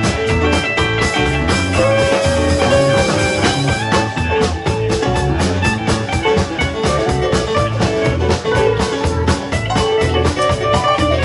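Rock band playing an instrumental passage: guitars over bass and drum kit with a steady beat.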